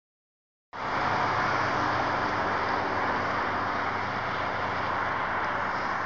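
Steady, even rush of motorway traffic, cutting in abruptly just under a second in.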